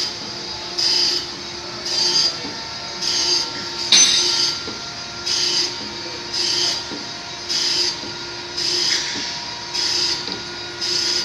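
Compressor hissing in regular bursts, roughly once a second and each about half a second long, with a high squeal in each burst. There is a sharp click about four seconds in.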